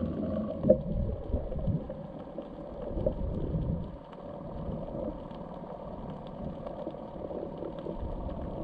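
Muffled underwater sound picked up by a camera carried by a swimming spearfisher: low rumbling water movement with scattered faint clicks, and one short sharp knock under a second in.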